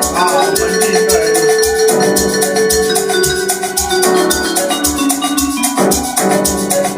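Amapiano beat playing: deep bass hits on a steady pulse under fast, even shaker or hi-hat ticks, with held melodic chords and lines above.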